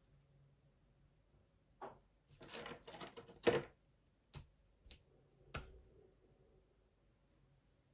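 Handling noises: a short stretch of rustling with several sharp clicks and knocks, the loudest about three and a half seconds in, the last near six seconds in.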